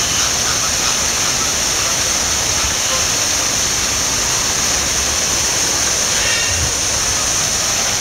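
Steady, even rushing noise like falling water, with a constant high hiss above it. A faint short bird call is heard about six seconds in.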